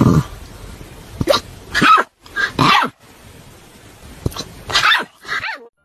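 A dog barking repeatedly, in short irregular barks, the last one sliding down in pitch.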